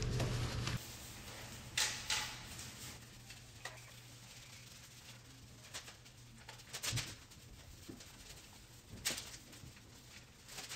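Light, scattered clicks, knocks and rubbing from handling a bicycle frame while it is wiped down with a wet wipe, over low room tone. A louder sound at the start cuts off just under a second in.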